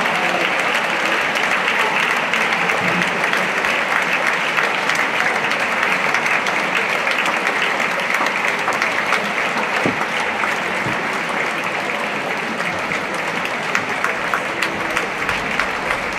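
Large theatre audience applauding, a dense, steady clatter of many hands clapping, easing slightly in the second half.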